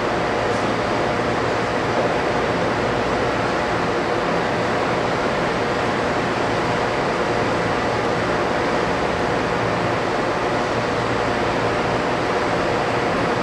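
Steady machinery hum and rushing noise, even and unbroken, with a few faint steady tones in it, from equipment running in a railway depot shed beside a parked train.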